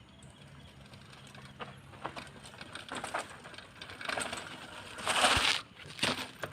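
Mountain bike with 27.5-inch wheels rattling and knocking as it rolls over a rough dirt trail, the knocks coming more often as it goes, with a loud burst of noise about five seconds in.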